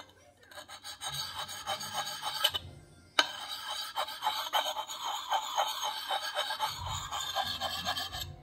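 Lansky Puck sharpening stone scraping in quick short strokes along a Marbles Hunter's Axe edge, polishing it on the puck's fine side. Brief pauses near the start and just before three seconds in, then a single sharp click, the loudest sound.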